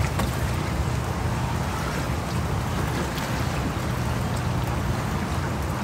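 Steady wash of water against a kayak's hull in a fast-running current, with a constant low wind rumble on the microphone.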